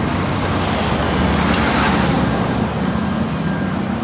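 Motor vehicle engine running steadily, a continuous low rumble.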